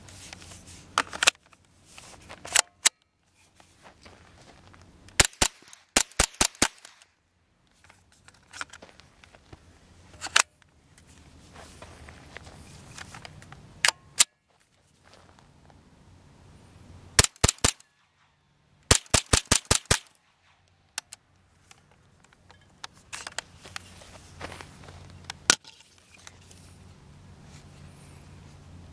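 Beretta ARX-160 semi-automatic .22 LR rifle firing: sharp single shots and quick strings of about four to six shots fired in rapid succession, with pauses between strings.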